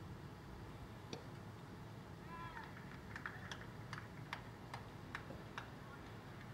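A cricket ball makes one sharp knock about a second in, off the bat or into the keeper's gloves. A brief high-pitched call follows, then about eight scattered sharp hand claps over the next two and a half seconds, over faint steady outdoor background noise.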